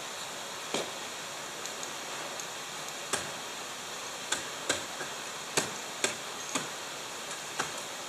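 Ice axe picks and crampon points striking the ice of a frozen waterfall as a climber goes up it: about eight sharp, irregularly spaced knocks over a steady hiss.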